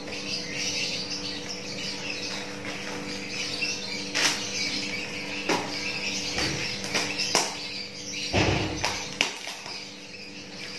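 Scissors snipping a few times into a parcel, with the plastic and paper wrapping rustling, loudest about eight seconds in, while birds chirp in the background.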